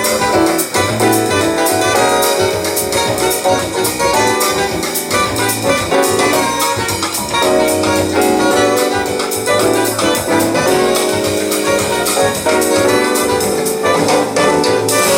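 Recorded jazz music, with sustained melody notes over a steady beat, played back through a high-end hi-fi system.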